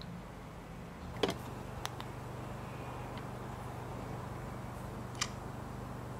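A few sharp clicks from fingers handling the iPhone 5, the loudest about a second in and another near the end, over a steady low hum that comes on with the first click.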